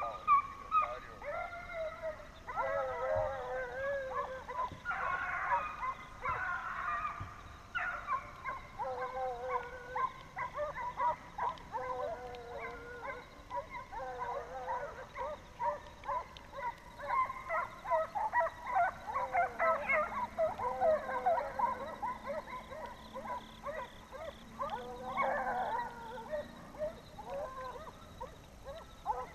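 A pack of deer hounds baying together in a steady chorus of overlapping calls, the sign of hounds running a hot track.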